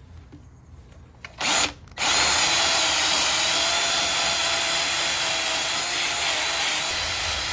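Power tool with a sanding disc, blipped once briefly about a second and a half in, then running steadily with a high whine from about two seconds in as it sands the throttle-body inlet of a Hemi intake manifold.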